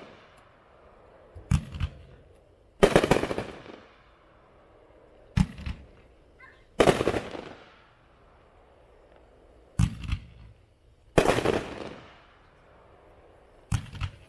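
Golden Titanium Willows 20-shot firework cake firing one shell about every four seconds. Each shot is a short thump as the shell is launched, then about a second and a half later a louder bang as it bursts, trailing off over about a second.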